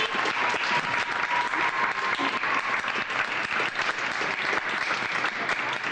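Audience applauding, dense steady clapping, with a thin high tone heard over it for the first two seconds or so.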